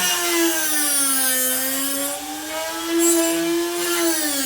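Drill Doctor 400 drill-bit sharpener's motor running with a whine that sags in pitch twice and recovers as the drill bit, held in its chuck, is pressed and turned against the grinding wheel, with a hissing grind over it.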